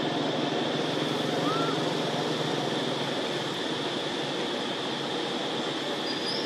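Steady outdoor background noise with a constant high-pitched drone over it, and a short rising chirp about a second and a half in.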